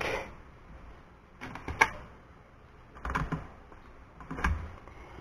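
Clicks and knocks from handling a small Bluetooth speaker and plugging a cable into its side, in three short clusters about a second and a half apart.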